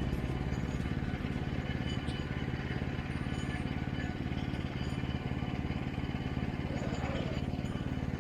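Small gasoline engine of a Woodland Mills HM122 bandsaw mill running steadily at speed.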